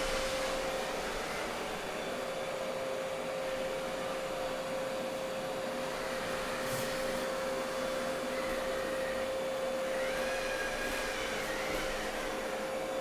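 Roborock S7 MaxV robot vacuum running with its suction set to turbo: a steady rush of the suction fan with a constant whine.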